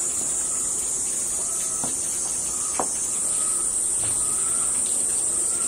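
Steady high-pitched chirring of an evening insect chorus, with two light clicks about two and three seconds in from a knife working a zongzi open on a plate.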